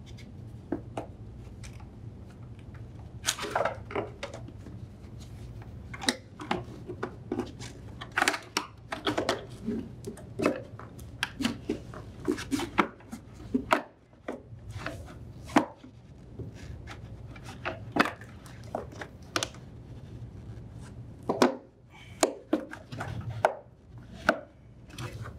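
Irregular clicks, knocks and scrapes of a refrigerator condenser fan motor assembly being worked into place in the machine compartment and set into its mounting tabs, over a steady low hum.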